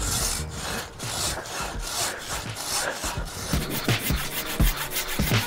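Large Japanese-style pull saw cutting through a log by hand, a steady back-and-forth rasp of teeth in wood, its strokes coming quicker in the second half.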